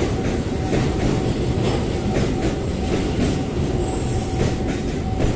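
Container freight train's flat wagons rolling past over a level crossing: a steady rumble with irregular clacks of the wheels over the rail joints and a faint steady tone underneath.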